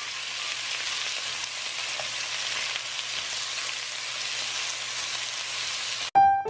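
Diced chicken sizzling as it fries in a nonstick pan, a steady hiss while the pieces are stirred. The sizzle cuts off about six seconds in, and piano music begins.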